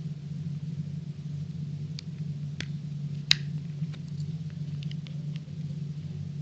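A few sharp plastic clicks and ticks, the loudest about three seconds in, as a tool works at the casing of a Microsoft Surface Wedge Touch Mouse during disassembly. A steady low hum runs underneath.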